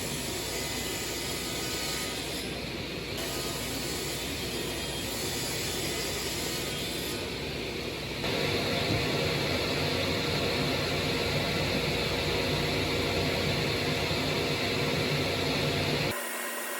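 Steady machine running noise. About eight seconds in it changes to a louder running sound with a steady tone in it, then cuts off abruptly just before the end.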